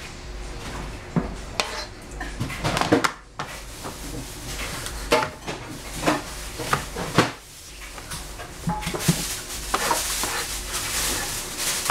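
Chinese cleaver chopping a capsicum on a plastic cutting board: scattered single knocks of the blade on the board, quickening into a run of quick chops about three-quarters of the way through.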